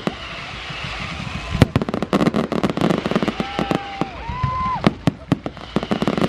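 Fireworks display going off: a rapid string of sharp bangs and crackles, with one louder bang about a second and a half in and a few short whistles near the middle.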